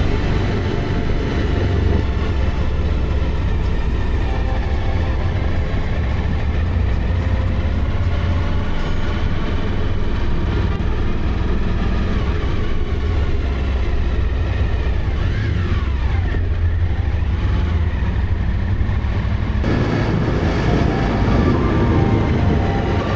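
Suzuki V-Strom DL1000's V-twin engine running steadily at road speed, with wind rushing past the microphone. The revs rise and fall a few times about two-thirds of the way through. Near the end the wind hiss becomes suddenly stronger.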